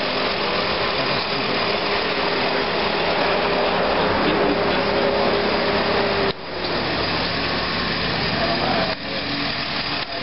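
3.8-litre V6 van engine idling steadily, heard from the open engine bay, with two abrupt breaks about six and nine seconds in.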